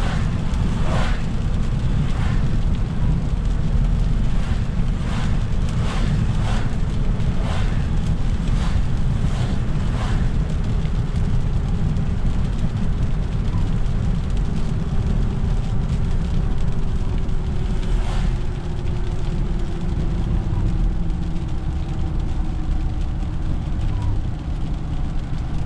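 Inside a car driving on a rain-soaked highway: steady low road and engine rumble with tyre hiss on wet pavement. A run of short swishes comes through the first ten seconds and once more later on, and a faint hum falls slowly in pitch in the second half.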